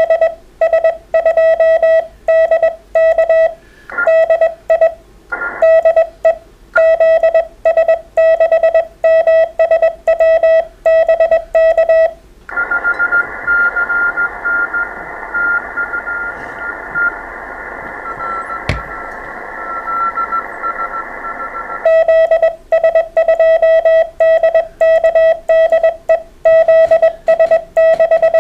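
Morse code from an amateur radio transceiver: a single tone keyed in a fast run of dots and dashes. For several seconds in the middle the keyed tone stops and the receiver gives band hiss with a faint, weaker Morse signal in it and one sharp click, before the strong keyed tone returns.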